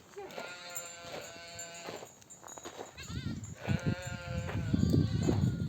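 Sheep bleating, several separate wavering calls one after another. From about halfway a low rumbling noise builds up and grows louder under the calls.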